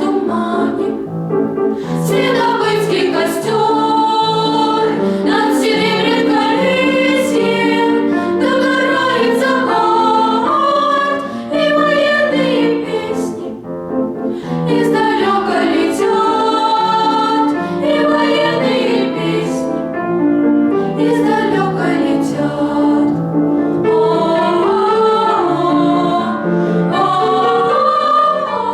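A vocal ensemble singing a song in several voices together, in melodic phrases with short breaks between lines.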